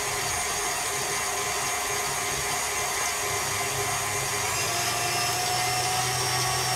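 KitchenAid stand mixer running at speed, its wire whisk beating egg whites for meringue as sugar is added gradually: a steady motor whir whose tone shifts slightly about four and a half seconds in.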